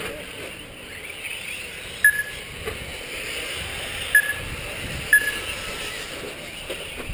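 Radio-control short course race trucks running around the track, a steady high whine and hiss. Three short, sharp high beeps stand out, about two, four and five seconds in.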